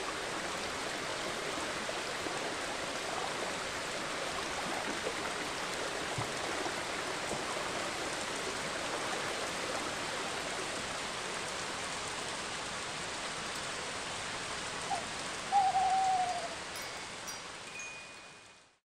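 Nature ambience of steady rushing water. Near the end a single owl hoot sounds, slightly falling in pitch, and then everything fades out.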